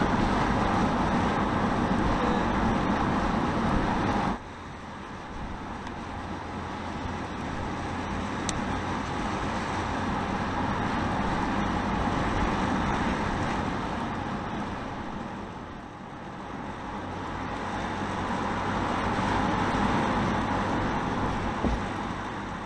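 Mercedes Sprinter 316 CDI diesel pickup driving along a road, with steady engine and tyre noise. About four seconds in the sound drops suddenly, then swells and fades twice.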